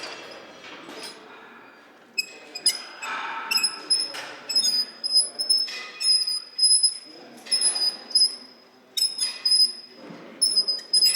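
Repeated short, high-pitched squeaks, all at much the same pitch, starting about two seconds in and coming every half second to a second.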